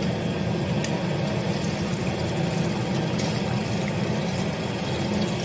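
Par-fried baby potatoes deep-frying a second time in hot oil in a kadhai: a steady sizzle over a steady low rumble, with a few faint crackles.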